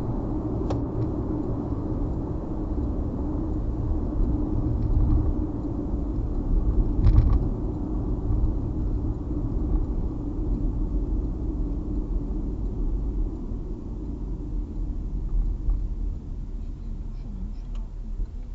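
Steady road and engine rumble inside a moving car's cabin, picked up by a dash cam's built-in microphone. A faint click comes about a second in, and a louder thump comes around seven seconds in.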